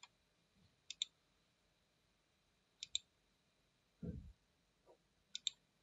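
Computer mouse buttons clicking: three pairs of quick sharp clicks spaced a couple of seconds apart, with a soft low thump about four seconds in.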